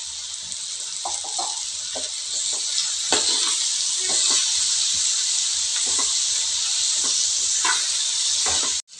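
Bottle gourd and onion sizzling in an oiled nonstick kadai as ground coconut masala paste goes in, with scattered scrapes and clicks of stirring. The sizzle grows louder about three seconds in and cuts out sharply for an instant near the end.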